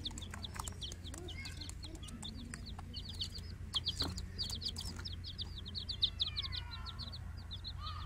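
Baby chickens (chicks) peeping: a fast, continuous stream of short, high peeps from several birds. A few sharp knocks come about four seconds in.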